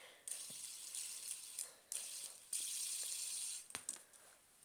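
Fidget spinner whirring on its bearing: a steady high hiss in three spins, the last and loudest starting about halfway through and stopping suddenly, then a light click.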